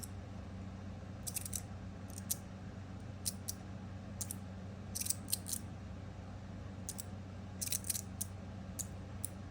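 Stainless steel magnetic fidget slider being worked by hand: its plates slide and snap into place with sharp metallic clicks, singly or in small clusters about once a second. The clicks are the plates locking in at the corners under a hybrid magnet setup.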